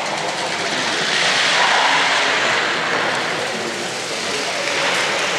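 A stock sliding on its running sole down a hard indoor lane floor: a steady grinding hiss that swells slightly partway through and then eases.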